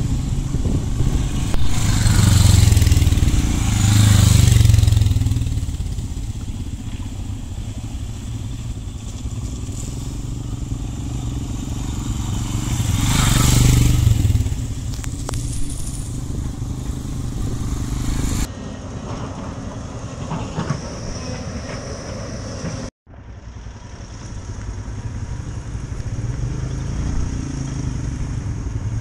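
Motorcycle engines running as several bikes ride past close by on a muddy dirt road, swelling loudly as they pass twice, about two to five seconds in and again around thirteen seconds. Later, a motorcycle engine running steadily at low speed on a rocky trail.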